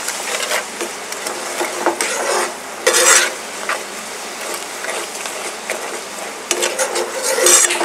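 Metal ladle stirring and scraping across a pan of sizzling, watery sauce, with a steady sizzle underneath. Two louder scrapes come about three seconds in and near the end.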